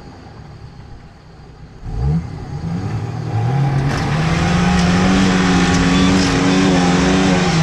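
Off-road truck's engine revving hard under load. It picks up about two seconds in, climbs quickly in pitch, then holds at high revs.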